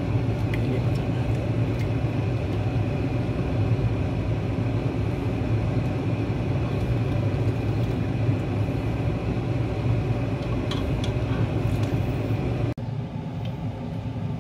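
Steady low kitchen hum over a pot of pork belly broth at the boil while foam is skimmed off with a slotted spoon, with a few light clicks from the spoon. Near the end the background cuts off abruptly and turns quieter.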